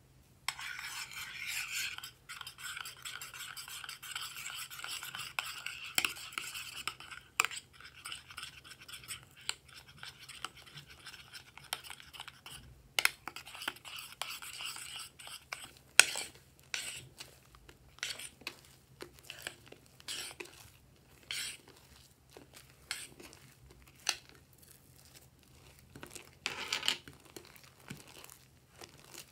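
A metal spoon stirring white foam into wet glue in a glass dish. A dense crackling fizz of foam comes first, then scattered sharp clicks and scrapes of the spoon against the glass, with squelching of the thickening slime.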